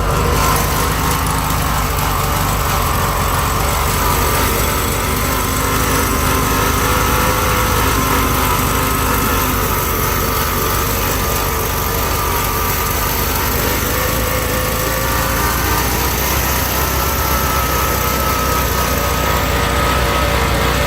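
1971 VW Bus's air-cooled flat-four engine idling roughly and steadily, running a bit rich with the rebuilt carburettor not dialed in correctly; the generator is making a lot of noise.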